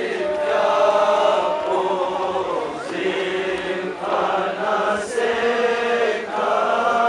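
A Balti noha, a Shia mourning lament, chanted unaccompanied by a male reciter in long, wavering phrases, with other voices joining in.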